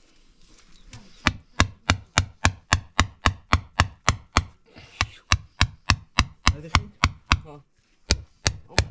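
A hammer tapping smooth river stones down into wet concrete: sharp, even taps about three a second, starting about a second in, with a short pause near the end before they resume.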